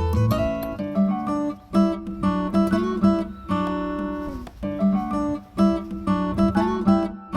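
Background music: acoustic guitar picking and strumming a steady melody.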